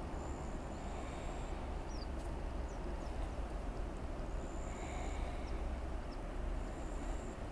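Outdoor ambience: a steady low rumble of wind buffeting the microphone, with a few thin, high bird calls about a second long, heard three times, and some short chirps over it.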